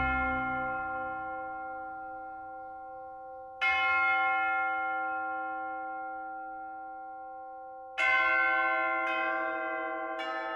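Church bells struck and left to ring, each stroke fading slowly with a steady hum. A fresh stroke comes about three and a half seconds in, another at about eight seconds, then two quicker ones about a second apart near the end.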